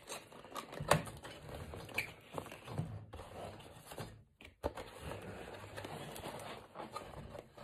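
Cardboard action-figure box being handled and opened: the end flap lifted and the inner packaging worked out, with scattered light taps, scrapes and rustles of card and paper.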